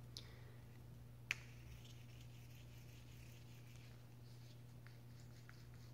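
Near silence over a steady low hum, with a few faint clicks of a Seydel Saxony chromatic harmonica being handled; the sharpest click comes about a second in.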